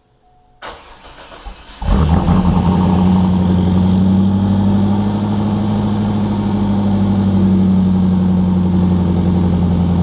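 A C5 Corvette's 5.7-litre V8 cranks on the starter for about a second, catches, and settles into a steady, loud idle. The owner says it is still making kind of a weird noise, and he suspects the freshly installed automatic transmission is short of fluid.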